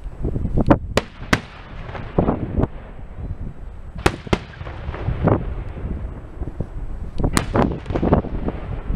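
Aerial firework shells bursting: a run of sharp bangs and cracks at irregular intervals, some in quick pairs, with a low rumble between them.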